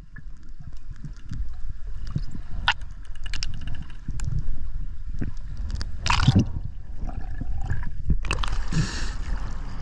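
Underwater sound of a freediver swimming up from the bottom: scattered faint clicks and a short gush of water about six seconds in. About eight seconds in, the camera breaks the surface and water rushes and splashes around it.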